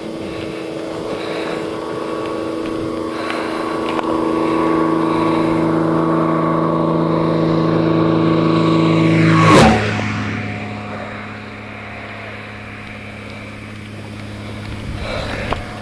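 Single-engine Cessna propeller plane making a low fly-by. Its engine drone grows steadily louder, then drops sharply in pitch as the plane passes about nine and a half seconds in, and goes on at a lower pitch and more quietly.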